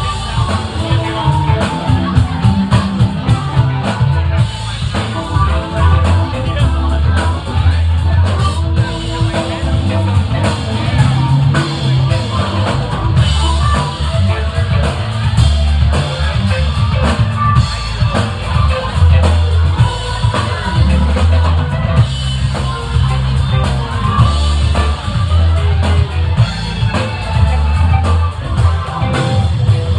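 Live rock band playing: electric guitar, bass guitar and drum kit, with a heavy, steady low bass-and-kick pulse.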